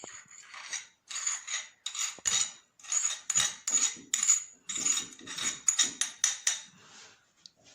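Spoon clinking and scraping against a cup in a run of short strokes, about two a second, as ground cloves and milk are spooned into lukewarm water. The strokes die away near the end.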